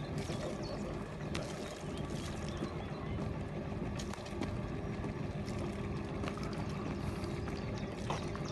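Steady machine drone of a sailboat being hauled out on a slipway trailer, with water pouring and trickling off the hull and trailer as they come up out of the water.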